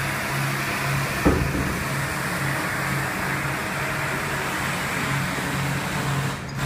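Steady machinery noise on a furniture factory floor, with a low hum that pulses about one and a half times a second, and a single sharp knock about a second in.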